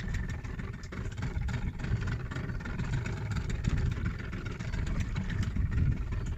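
Outboard motor of a small open fishing boat running steadily as the boat travels through choppy water, a low rumble with a faint steady whine above it.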